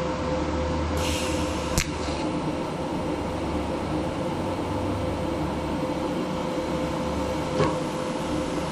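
PrimeWeld 225x TIG welder humming steadily. About a second in there is a short hiss with a sharp click, and another click comes near the end, during an attempt at an autogenous tack on mild steel plate that does not want to stick.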